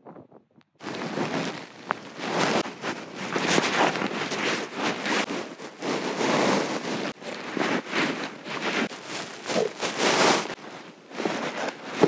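A few faint clicks, then about a second in a loud, gusty rush of wind on the microphone that rises and falls in gusts.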